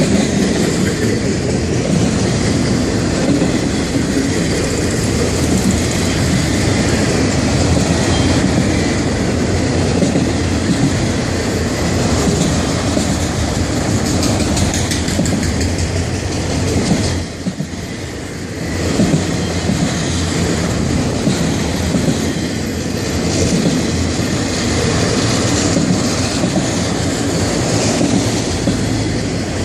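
Florida East Coast Railway freight train rolling past at slow-order speed: a continuous, loud rumble and rattle of freight cars on the rails. The noise dips briefly, for about a second, some seventeen seconds in.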